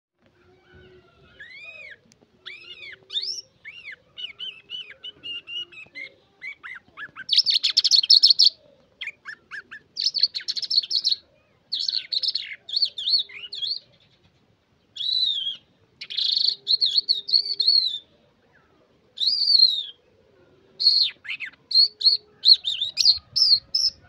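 Caged lark singing a fast, varied song of chirps, trills and whistled phrases in bursts with short pauses between them, soft at first and louder after the first several seconds.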